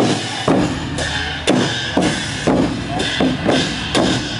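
Lanna kong pu ja ensemble: large barrel drums beaten with sticks together with hand-held gongs and small cymbals, in strokes about twice a second that ring on.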